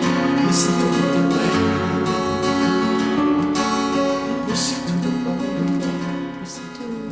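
Acoustic guitar played in a song's instrumental ending, picked notes with an occasional strum, fading out near the end.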